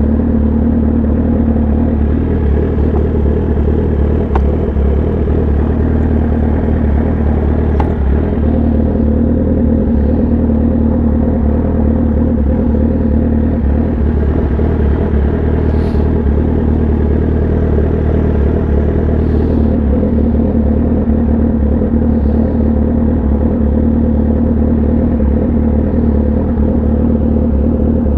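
Kawasaki ZX-10R inline-four engine running through an SC-Project exhaust, holding a steady engine speed with an even, loud note and no revving.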